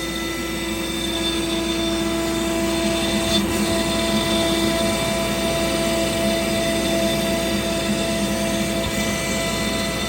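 AltMill CNC machine running steadily, its motor giving a constant whine with several steady tones over an even rushing noise.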